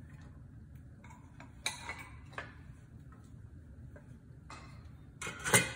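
A few light clicks and taps as minced garlic is scraped off a metal bench scraper over a frying pan, then a louder sharp clatter near the end.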